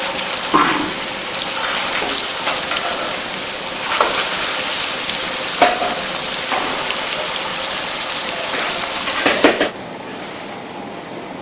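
Food frying in hot oil: a steady sizzle with a few clinks of a metal utensil against the pan. About three-quarters of the way through it cuts off sharply, leaving a much quieter steady background noise.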